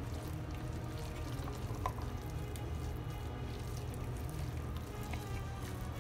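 Wet squelching of a mayonnaise-dressed chicken salad being stirred with a silicone spatula in a glass bowl, with a couple of light clicks of the spatula against the glass, over soft background music.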